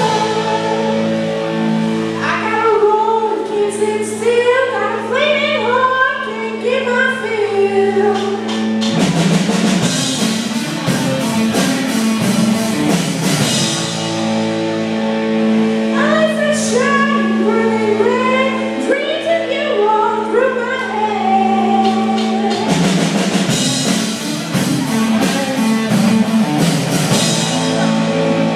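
Live rock band playing: sung lines over held chords, alternating with the full band's riff on electric guitars, bass and drum kit, which comes in about nine seconds in and again near twenty-three seconds.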